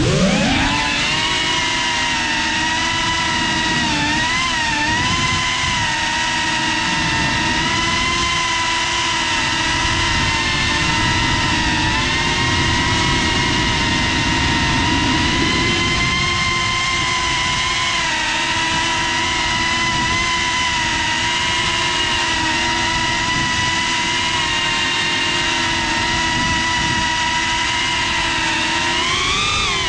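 GEPRC CineLog 35 ducted FPV cinewhoop drone's motors and propellers spinning up to take off, then a steady high whine in flight, heard close from the GoPro on board. The pitch wavers with the throttle and rises again near the end.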